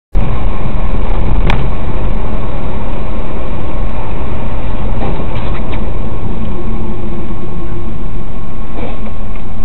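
Steady engine and road noise inside a moving vehicle, picked up loud by a dash-cam microphone. It starts abruptly just after the clip begins, with a few faint clicks.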